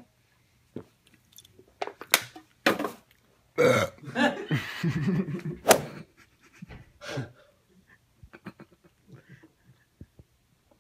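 A man belching loudly after gulping down a can of fizzy drink: two short belches about two seconds in, then one long belch lasting about two seconds, followed by a few smaller sounds.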